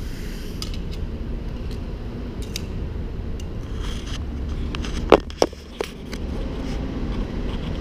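Utility knife blade scratching and tapping on a rough patched concrete floor: scattered short scrapes and clicks, with one sharp click about five seconds in. A steady low rumble runs underneath.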